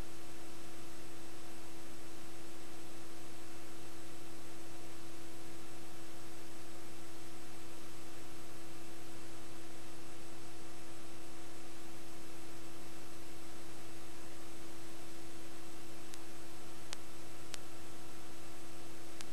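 Steady electrical hum at one constant pitch with its overtones over an even hiss, with no game sound: the empty audio track of a silent tape transfer. A few faint ticks come near the end.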